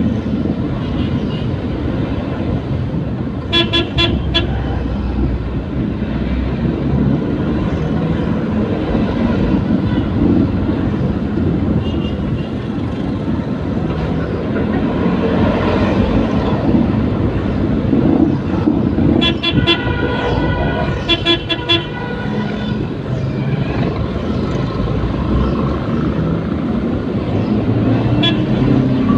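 Vehicle horn honking in bursts of quick repeated beeps, a few seconds in, again in a longer run about two-thirds through, and once more near the end, over steady engine and road noise in traffic.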